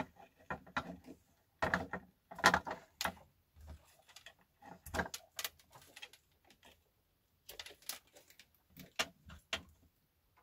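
Handling noise of small electronics: irregular clicks, knocks and rustles as wires and plastic connectors are fiddled with on an RC model truck, in a few short clusters.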